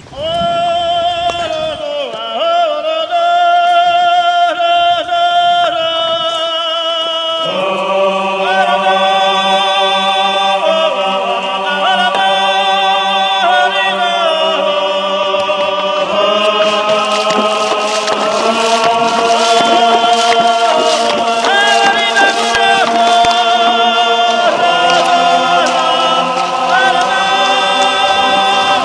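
Background music of choir-like voices singing long held notes with vibrato, a lower voice joining about seven seconds in.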